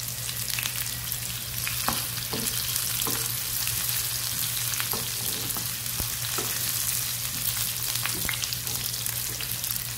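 Sliced onions frying in hot oil in a nonstick pan: a steady sizzle with frequent small pops and crackles, and the clicks of a spatula as the onions are stirred.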